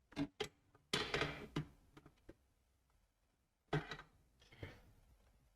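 A few short clicks and knocks with a brief rustle, from tools and parts handled on a repair bench.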